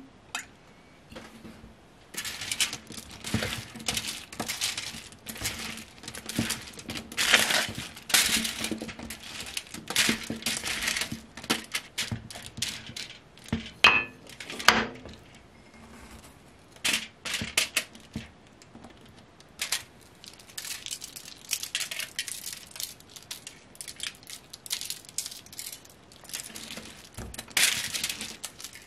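Aluminum foil on a baking sheet crinkling and rustling in irregular bursts as hands spread and turn oiled, thinly sliced potatoes over it, with a single clink about halfway through.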